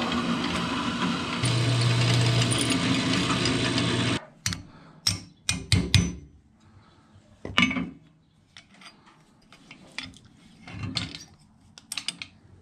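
Benchtop drill press running and drilling out a metal rivet, its motor dropping in pitch as the bit bites, then switched off about four seconds in. Several sharp metal taps follow as a hammer strikes a punch to knock the rivet out, then faint handling clicks.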